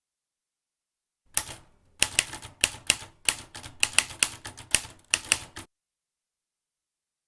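Typewriter keys striking in an uneven run of about a dozen sharp clacks, starting about a second and a half in and stopping abruptly about four seconds later.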